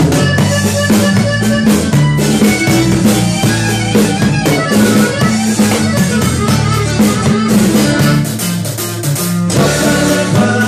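Norteño corrido played live: a button accordion carries the melody over strummed acoustic guitar and low bass notes, with no singing.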